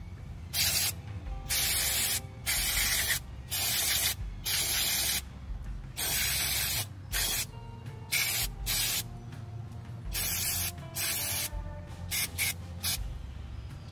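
Aerosol carburetor cleaner hissing out through its thin straw nozzle onto a small-engine carburetor, in a series of short spurts with brief pauses between them.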